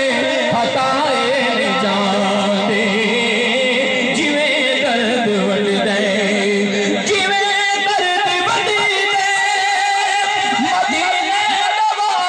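A man singing a Punjabi devotional kalam in long, wavering held notes, amplified through a public-address loudspeaker.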